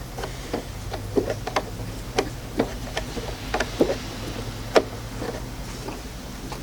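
Irregular light clicks and ticks of a hex Allen key turning screws out of a Dewalt DW735 planer's blower housing, over a faint steady low hum.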